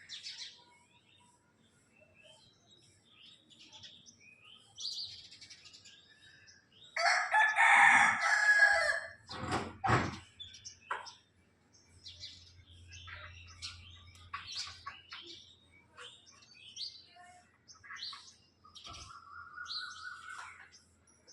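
Small birds chirping on and off, with a rooster crowing once about seven seconds in, the loudest sound. A couple of sharp knocks follow the crow, and a short rising whistled call comes near the end.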